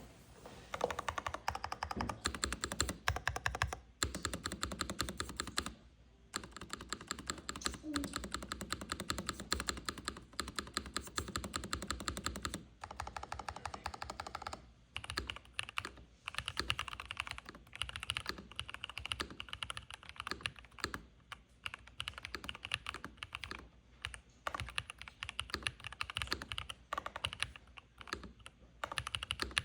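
Mechanical keyboard, a freshly built Novelkeys Classic Glo with Jerrzi Sea Salt Mouse switches and GMK keycaps, being typed on. Fast runs of keystrokes with a few short pauses give way, about halfway through, to slower, more spaced-out strokes.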